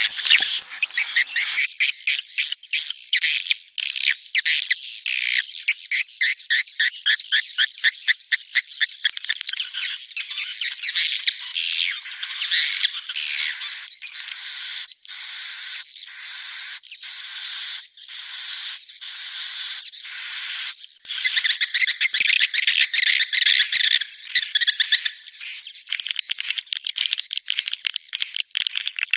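Recorded edible-nest swiftlet calls, the 'birahi beranak' mating and breeding call used as a lure sound. Rapid trains of short twittering chirps come first, then a run of longer chirps with a rising note about one a second, then dense chirping again.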